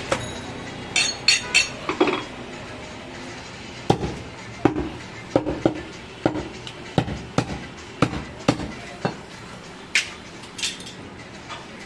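Heavy butcher's chopper chopping goat meat and bone on a wooden log block: a string of irregular chops, roughly one or two a second, with a few sharper metallic clinks among them.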